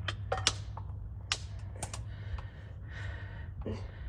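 A few irregular sharp clicks and taps from tools being handled as they get under the Jeep, over a steady low hum.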